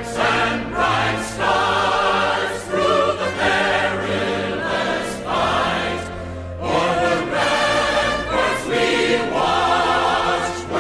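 A choir singing a national anthem in long held chords over steady low accompaniment.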